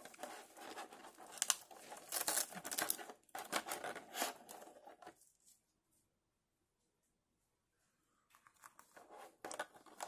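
Clear plastic blister tray crackling and crinkling as fingers press on it and pick parts out, for about five seconds and again near the end.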